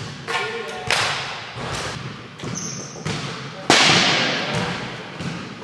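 Sharp smack of a plastic wiffle ball impact, echoing through a large gymnasium, with a lighter knock about a second in.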